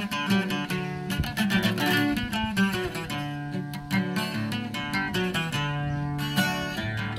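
Twelve-string acoustic guitar played solo: a quick run of picked notes over bass notes, an instrumental passage with no singing.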